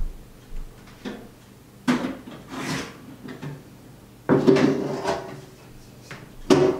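Household handling noises: a few separate knocks and short scrapes like a drawer or cupboard being worked, the longest and loudest a little past four seconds in.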